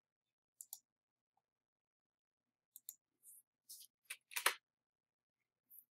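A few faint, scattered clicks and taps from a computer keyboard and mouse, the loudest about four and a half seconds in.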